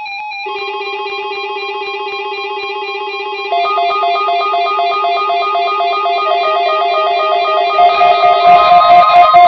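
Several NOAA weather radio receivers sounding their electronic alert tones, set off by a Required Weekly Test: rapid two-pitch warbling beeps. One receiver starts, a second joins about three and a half seconds in and a third near the end, and the sound grows louder as each joins.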